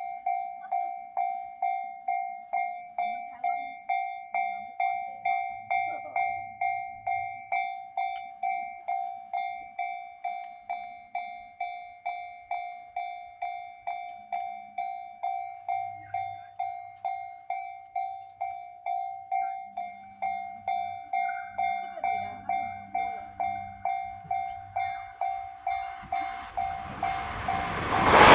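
Japanese railway level-crossing alarm ringing steadily, about two dings a second. In the last couple of seconds the rushing noise of an approaching 683 series electric express train swells up as it reaches the crossing.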